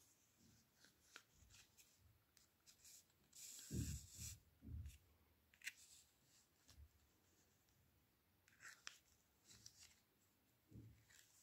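Hands wrapping and threading yarn around a small card disc stuck with pins: faint rustling, brushing and small taps, loudest about four seconds in.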